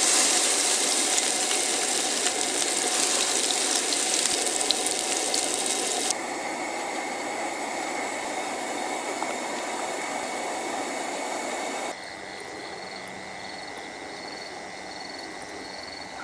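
Raw hamburger patty sizzling in a hot oiled frying pan on a camp stove. The sizzle steps down to a quieter hiss about six seconds in. Near the end only a faint steady hiss with soft regular chirps remains.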